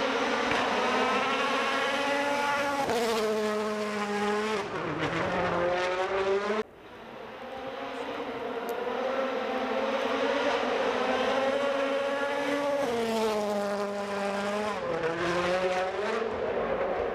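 Rally car engines running hard as the cars pass close by, twice. Each time the pitch climbs as the car approaches, then drops and falls away. The first pass cuts off abruptly about seven seconds in, and the second car builds straight after.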